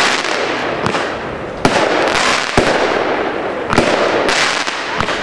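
Pyro Austria 'Black Mamba' fireworks cake firing its shots. Sharp reports come about once a second, each followed by a long hiss as the burst's sparks burn out.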